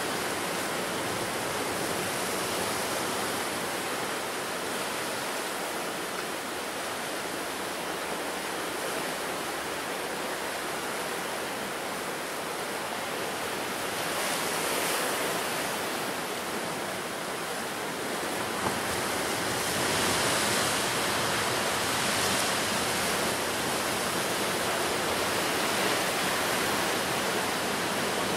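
Ocean surf washing on the shore, a continuous rush of waves with swells that grow louder about halfway through and again for the last third.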